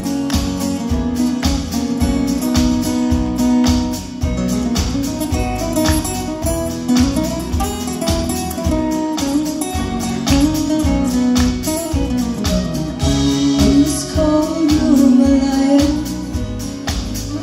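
Live band playing an instrumental break in a country song: guitars over a steady beat, with a sustained melody line gliding between notes.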